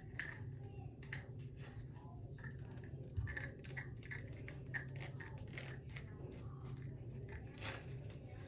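Scissors snipping repeatedly through a wig, many quick cuts in an uneven rhythm, over a low steady hum.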